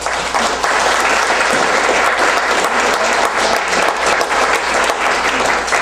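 An audience applauding, breaking out abruptly and keeping up a dense, even clapping.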